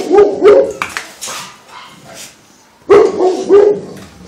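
Dogs barking in two short runs of barks, one at the start and another about three seconds in.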